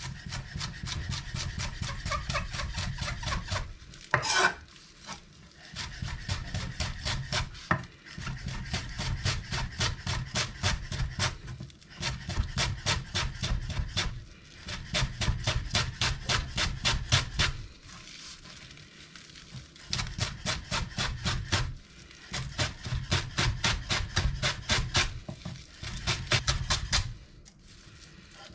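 Zwilling chef's knife rapidly chopping fresh greens on a wooden cutting board, about six quick strokes a second, in runs of a few seconds with brief pauses between them.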